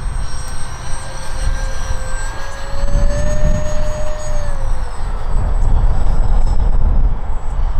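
50 mm electric ducted fan of a 3D-printed Avro Vulcan model jet whining in flight. Its pitch rises a little, then drops away about five seconds in, over a low rumble.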